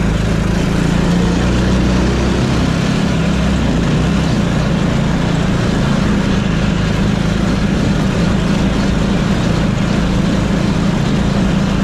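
Engine of a small open vehicle running steadily as it drives along, a constant low drone with no change in pace.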